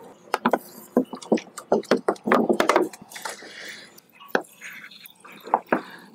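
Water sprinkled from a plastic bottle with a perforated cap onto flattened plastic milk-packet mulch in a grow bag, heard as irregular sharp taps and crackles of the plastic with a light splashing hiss. The taps are densest in the first few seconds and thin out later.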